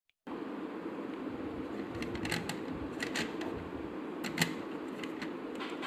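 Light clicks and taps of slate pencils knocking against each other as they are handled, over a steady background hum that starts a moment in.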